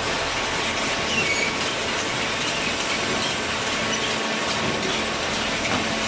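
Hydraulic cardboard baler running: steady mechanical noise with a low hum and a few short high-pitched squeaks.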